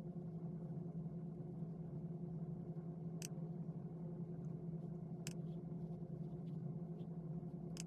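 A steady low hum with evenly spaced overtones, and three faint sharp clicks about two seconds apart.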